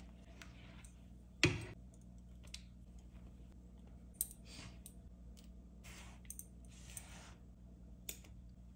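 Silicone spatula stirring cake batter in a stone-coated frying pan: soft scrapes and scattered clicks, with one sharper knock about a second and a half in.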